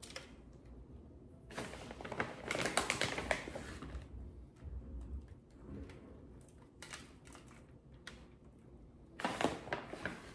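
Tortilla-chip nachos being served onto paper plates: crisp crackling and scraping of the chips in three bursts, the longest starting about a second and a half in, with a short one near the end.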